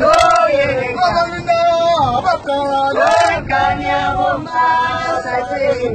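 Voices singing, long held notes that bend up and down, over the steady engine and road rumble of a moving minibus.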